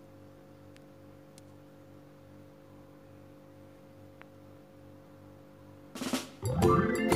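Faint steady low hum, then background music with drums comes in loudly about six seconds in.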